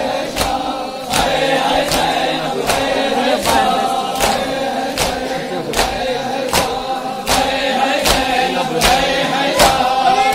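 A crowd of men chanting a mourning lament together while beating their chests in unison, a sharp slap falling about every three-quarters of a second in time with the chant: Shia matam.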